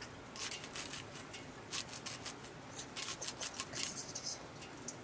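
Curved sickle blade chopping a handful of fern fronds, drawn against the hand: a quick, irregular run of crisp cutting strokes through the green stems.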